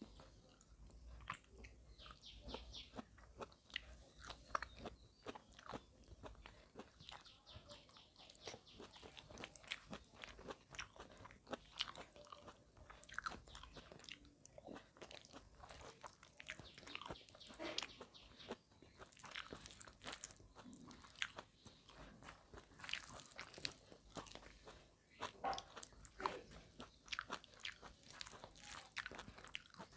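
Close-miked sounds of a person eating rice and curry by hand: chewing and biting mouthfuls, many short irregular wet clicks, with fingers working rice on a steel plate.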